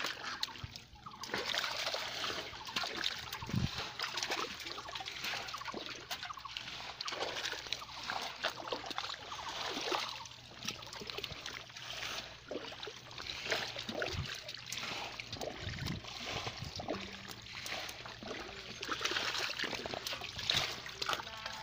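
Hands groping and sloshing through shallow muddy water and soft mud, a steady run of irregular splashes, squelches and trickles.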